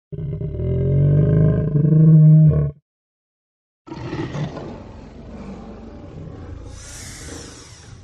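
Dinosaur roar sound effect: a loud, pitched roar of about two and a half seconds that cuts off suddenly. After about a second of silence comes a second, quieter and rougher roar, with a high hiss near the end.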